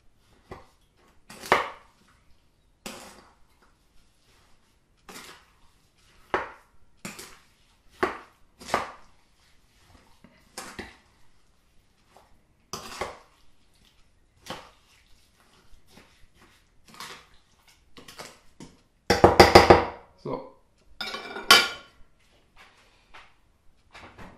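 Metal spoon scraping and knocking against a stainless steel mixing bowl as cut plums and sugar are stirred together, in irregular strokes about every second. Near the end comes a louder rattling scrape.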